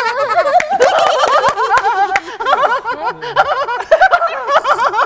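A woman laughing hard in a long run of quick, high-pitched bursts.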